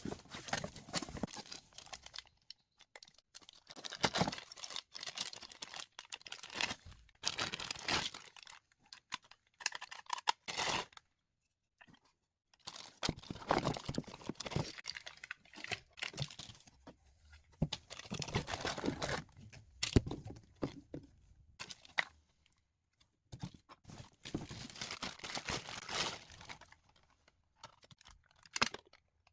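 Packaging being opened and handled by hand: irregular bursts of rustling and tearing with many small clicks, broken by short pauses.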